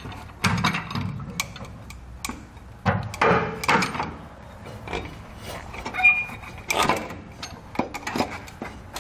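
An air helper spring assembly being worked into place against a truck's rear frame bracket: scattered knocks, clunks and scrapes of its metal plates and bolts against the frame, with a short squeak about six seconds in.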